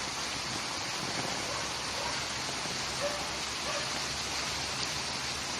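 Steady rushing of water, an even noise that does not change.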